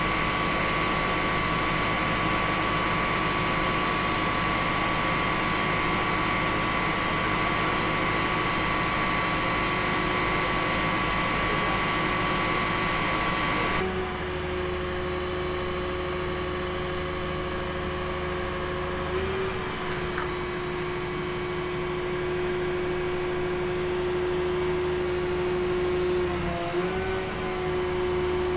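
Biedenbach WABI-K 300 knuckle boom crane's hydraulic power pack running steadily as it holds and moves a 55-ton test load: a mechanical hum with a steady high whine. The whine changes abruptly about halfway through, then dips in pitch briefly twice.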